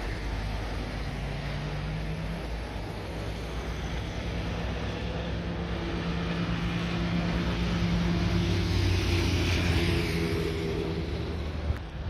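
Jet airliner's engines at takeoff thrust, a steady roar with a low hum that grows louder to a peak about nine seconds in and then eases slightly.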